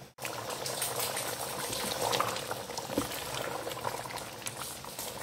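Goat curry bubbling in the pot as the meat simmers in the spice paste, a steady dense crackle of many small pops. It cuts in abruptly just after the start.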